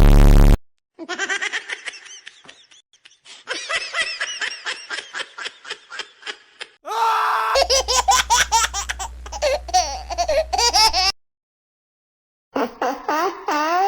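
High-pitched laughter in quick repeated pulses, in several runs broken by short silences, after a brief loud burst of noise at the very start.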